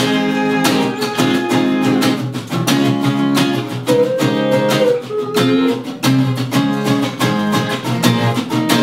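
A live band plays an instrumental passage of a pop song, led by acoustic guitar strummed in a steady rhythm.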